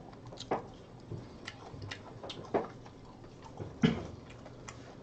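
A person chewing food, with small mouth clicks and smacks scattered through, about seven of them.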